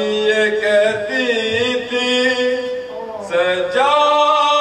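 A man chanting a Muharram mourning recitation in long, held melodic notes into a microphone, with a short break for breath about three seconds in.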